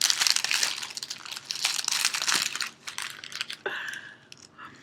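Gift wrapping crinkling and rustling as a present is unwrapped by hand: dense crinkling for the first two to three seconds, then a few scattered rustles.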